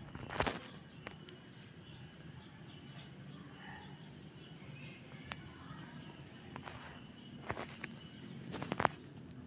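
Outdoor ambience with faint insects chirping steadily. A few short scuffs or knocks are heard, the loudest cluster near the end.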